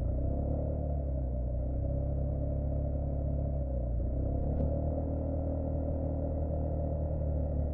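Motorcycle running on the road with a steady low rumble of engine and wind, its engine note rising and falling slightly as the bike rides through bends.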